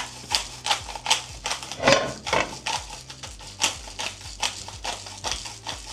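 Irregular clicks and light knocks of kitchen utensils and containers being handled on a counter while steaks are oiled and seasoned.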